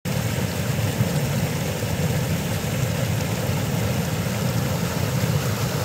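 Small rocky mountain stream rushing steadily over a little cascade, a continuous deep rush of water.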